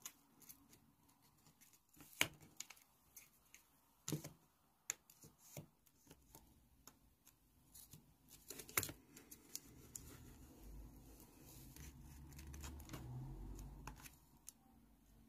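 Small stained basswood pieces being handled and set in place: scattered light taps and clicks of wood against wood, the sharpest about two and nine seconds in, with a low rumble of handling from about ten to fourteen seconds in.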